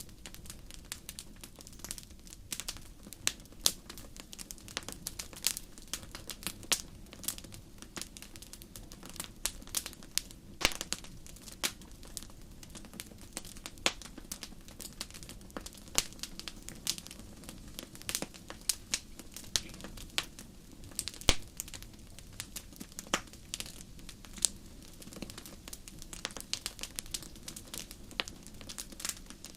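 Wood fire in a fireplace crackling, with many sharp, irregular pops and snaps over a steady low rush of the flames.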